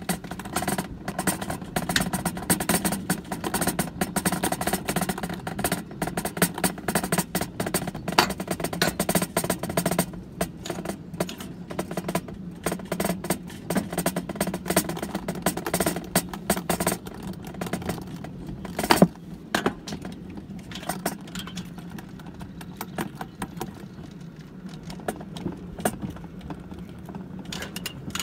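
Summer toboggan sled running down a metal trough track, rattling and clattering: a dense stream of irregular knocks over a steady low hum, with one sharper bang about two-thirds of the way through.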